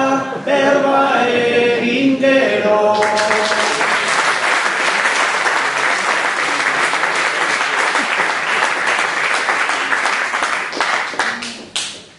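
A man singing unaccompanied, ending an improvised Basque verse (bertso). About three seconds in, the audience breaks into applause, which dies away near the end.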